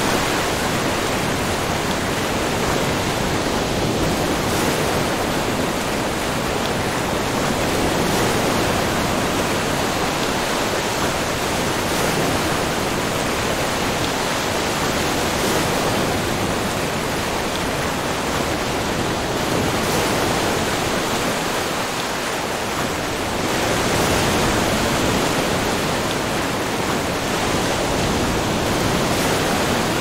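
Small ocean waves washing onto a sandy beach: a steady rushing of surf that swells slightly now and then.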